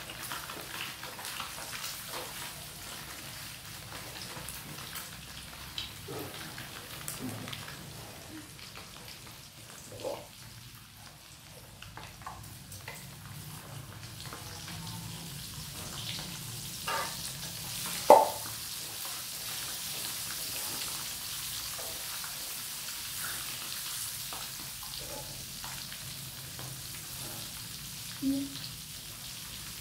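Quail eggs sizzling as they fry in a pan, a steady hiss, with a utensil stirring them and knocking against the pan now and then, sharpest about two-thirds of the way through.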